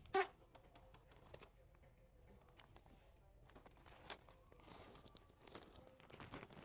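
Faint rustling and scattered light clicks, with one short sharp sound about a quarter of a second in.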